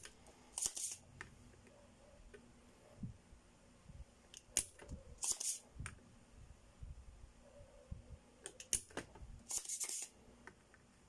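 Handheld desoldering pump (solder sucker) being worked at solder joints next to a soldering iron: three times, a sharp click followed by a short hiss.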